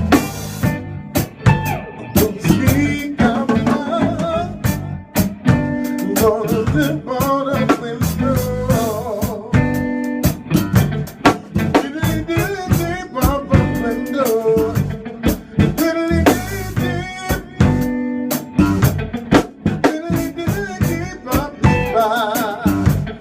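A live band playing a song: drum kit keeping a steady beat with rimshots, under guitar and a singing voice.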